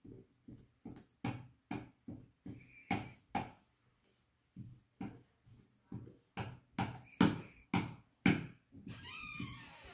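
Metal spoon jabbed down again and again into a puddle of slime on a tabletop, sticky slaps with knocks on the table, about two to three a second. There is a short pause near the middle, and the strokes get louder toward the end.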